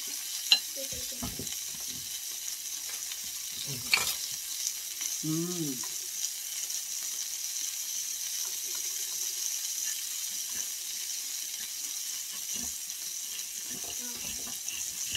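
Thin-sliced steak, ramps and asparagus sizzling steadily on the hot stone plate of an electric tabletop grill, with two sharp clicks about half a second and four seconds in.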